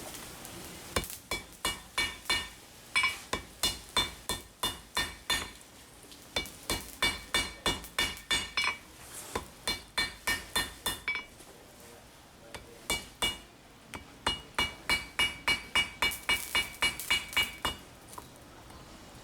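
Hand hammer striking steel, each blow ringing metallically. The blows come about three a second in several runs with short pauses between them.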